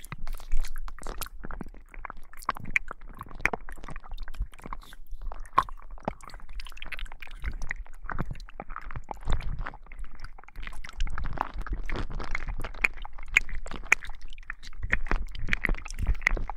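Slime being squished and worked close to a binaural microphone: a continuous run of wet, sticky crackles and pops. It is an ASMR effect standing in for a tentacle pushed deep into the ear.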